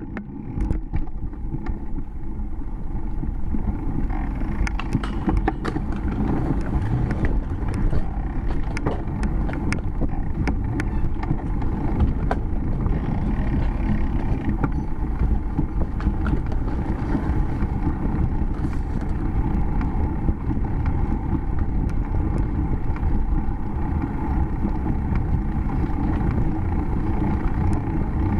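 Steady wind buffeting and tyre rumble on a bicycle-mounted camera's microphone as the bike rolls along a concrete path, fading in at the start. Scattered sharp clicks and rattles come through mostly in the first dozen seconds.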